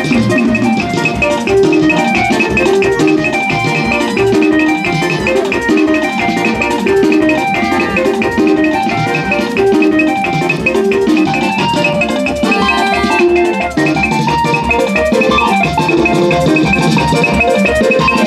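Lively music with a steady, fast drum beat of about four pulses a second under many short, bright melodic notes.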